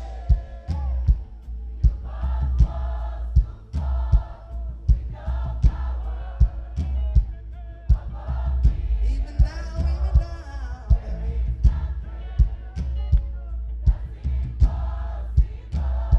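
Live gospel band music: a steady drum beat over a heavy bass line, with voices singing together like a choir.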